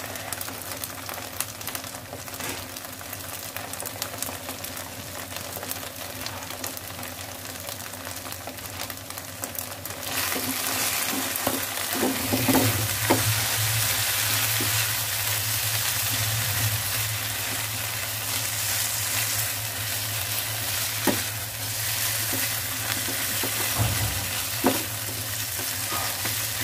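Minced corned beef with onion and garlic sizzling in a non-stick frying pan as it is stirred with a silicone spatula. The sizzle grows louder about ten seconds in, with a few light knocks later on.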